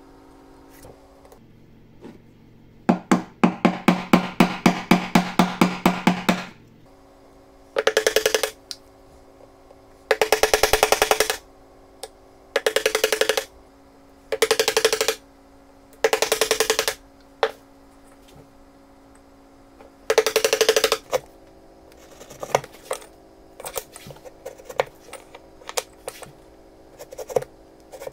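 A scroll saw runs for a few seconds with a fast, even chatter of its blade. Then a wooden mallet strikes a chisel into hardwood in about six short bursts of rapid knocks, and near the end come lighter, scattered clicks of a chisel paring wood by hand.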